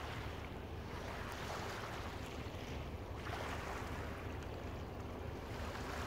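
Small waves lapping and washing over a shingle beach, swelling up every second or two, over a steady low rumble of wind on the microphone.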